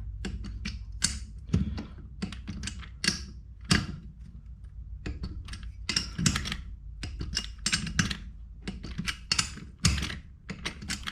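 Ratchet torque wrench clicking in short, irregular runs of sharp clicks as nuts on a motorcycle engine are tightened to torque, over a steady low hum.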